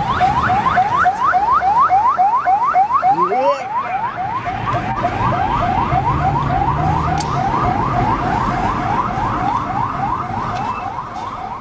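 Electronic vehicle siren sounding a rapid, unbroken series of rising whoops, about four a second, with a low rumble underneath.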